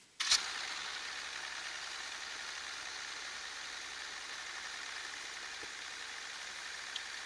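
Dodge Ram 2500's diesel engine idling steadily. It comes in suddenly about a quarter second in with a brief sharp burst.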